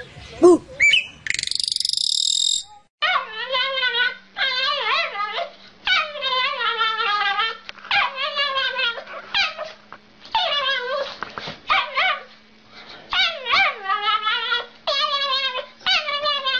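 A dog making a long series of drawn-out, wavering whine-like calls, one after another with short pauses, over a steady low hum; a short, different high-pitched sound comes before them in the first few seconds.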